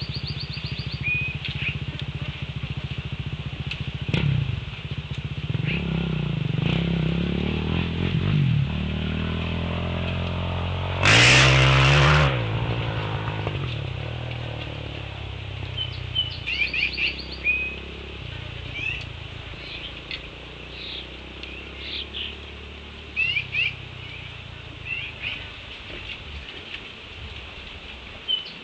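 A motor vehicle's engine running, its pitch rising to a loud burst about eleven seconds in, then fading away. Small birds chirp repeatedly in the second half.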